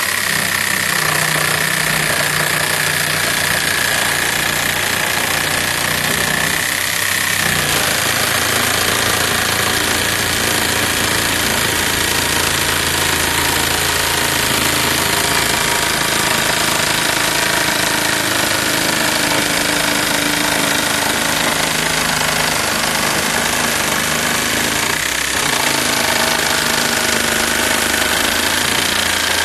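Cordless jigsaw running steadily while cutting through a particleboard panel, its note shifting slightly about seven seconds in.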